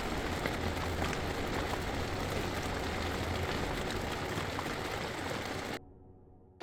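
Steady rain falling at night, an even hiss of drops that cuts off suddenly near the end.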